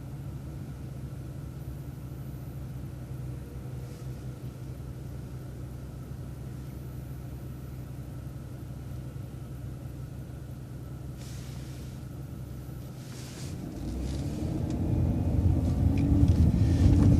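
City transit bus engine running at a steady low idle, then revving up and climbing in pitch as the bus accelerates away over the last few seconds.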